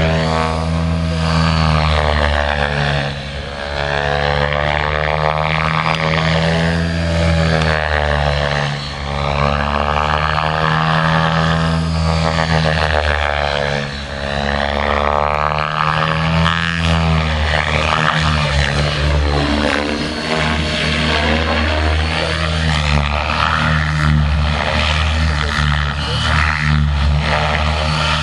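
Align T-Rex 600E Pro electric RC helicopter in flight: a steady low rotor drone with a higher whirr that swells and fades as it sweeps back and forth, dipping briefly every few seconds.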